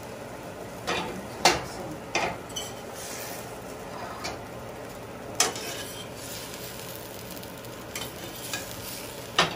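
A spoon stirring vegetables in a cooking pot, scraping and knocking against it now and then, over a steady sizzle.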